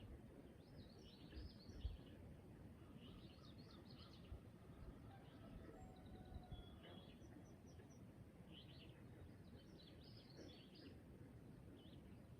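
Faint birdsong: short bursts of high chirping recur every second or two over a steady low background rumble.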